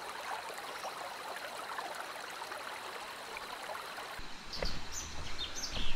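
Steady rush of flowing stream water. About four seconds in it gives way to a low rumble with a few knocks and short high chirps.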